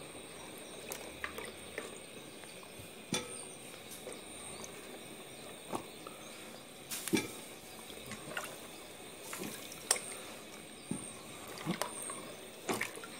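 Hand swishing green beans in a bowl of water, with scattered small splashes and drips.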